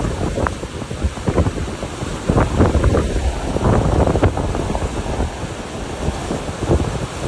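Gusty wind buffeting the microphone in irregular blasts over the continuous rushing of a river in flood, its fast brown water running high after a storm.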